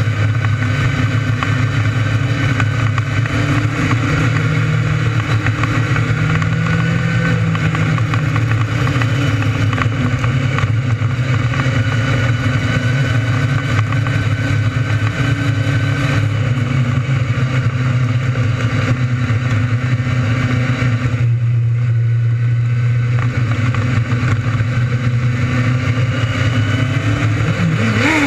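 600cc restricted micro sprint engine running hard at racing speed, its pitch holding high and shifting only slightly. Near the end a quick dip and rise in pitch is heard.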